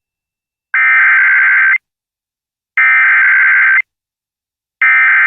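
Emergency Alert System SAME header: three identical bursts of digital data tones, each about a second long with about a second's pause between, sent at the start of a new weather alert.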